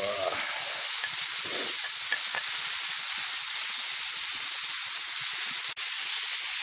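Venison tenderloin, mushrooms and shallots sizzling steadily in butter in a hot pan over a campfire.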